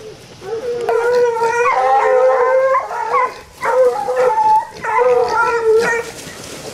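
Hound puppies baying at a hog they have run down: three long, drawn-out howling bays, the first starting about half a second in and lasting over two seconds.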